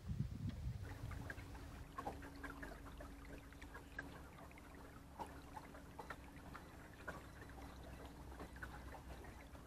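Quiet water lapping and trickling against a small boat's hull, with scattered small ticks and a faint steady hum underneath.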